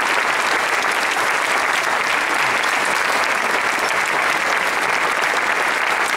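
Large audience applauding steadily, a dense unbroken clapping that holds at one level.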